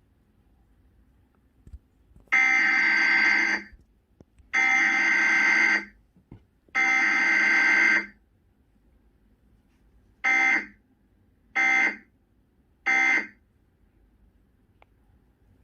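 Emergency Alert System SAME data bursts for a cable Required Weekly Test: three buzzy digital header bursts of about a second each, then three short end-of-message bursts.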